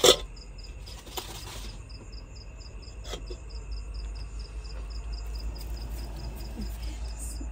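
Crickets chirping in a fast, even pulse of about five chirps a second. A sharp knock right at the start is the loudest sound, with fainter knocks about a second and three seconds in.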